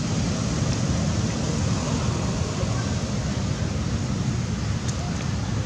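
Wind buffeting the camera microphone: a steady, fluctuating low rumble with a hiss above it, and a faint click about five seconds in.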